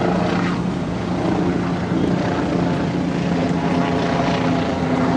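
Steady engine drone with a constant low hum, a second, higher hum joining a little past halfway.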